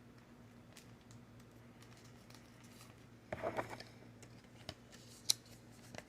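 Faint handling of Pokémon trading cards and their packaging: scattered light clicks and taps, a brief rustle about three and a half seconds in, and one sharp click a little after five seconds.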